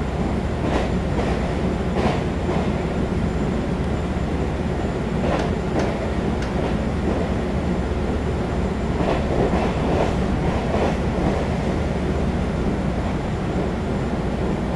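Taiwan Railway EMU700 electric multiple unit running at speed, heard inside the passenger car: a steady rumble from wheels and track, with short clicks and knocks scattered at irregular intervals.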